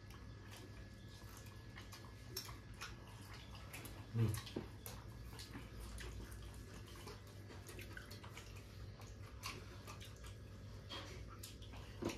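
Quiet sounds of people eating with their hands from steel plates: scattered light clicks and taps over a low steady hum, with a short louder low sound about four seconds in.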